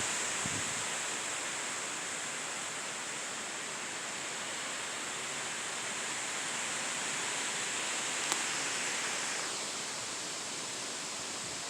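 Steady hiss of falling rain, with a single faint click about eight seconds in.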